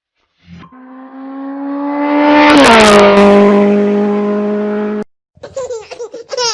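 A motor vehicle passing by: its steady engine note grows louder and drops in pitch as it goes past, then cuts off suddenly. A baby's laughter follows near the end.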